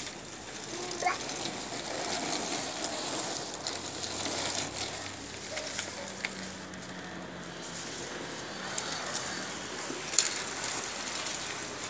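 Small plastic caster wheels of a baby walker rolling over floor tiles: a continuous rough rolling noise with scattered clicks and knocks.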